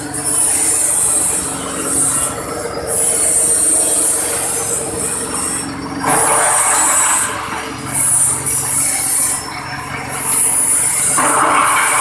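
Engine-driven cassava chopping machine running while cassava roots are fed in and sliced into chips. A high squeal comes and goes every second or two. The chopping gets louder about six seconds in and again near the end.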